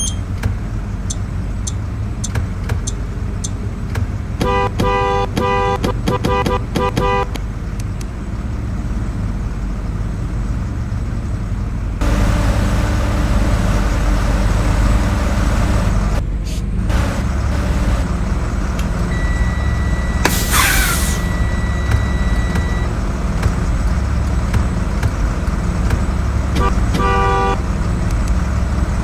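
School bus horns tooting over a steady low engine rumble. A rapid series of short honks comes a few seconds in, then a steady high tone for a few seconds midway with a brief hiss, and a few more quick honks near the end.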